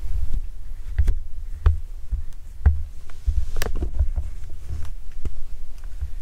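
Camera handling noise inside a hunting ground blind: a low, uneven rumble with scattered knocks and clicks as the camera is moved about and brushes the blind's fabric.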